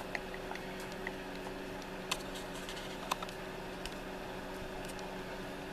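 A few faint, scattered metal clicks of a lock pick and tension wrench being set in a pin-tumbler lock's keyway, over a steady low hum. The sharpest click comes about two seconds in, and another about three seconds in.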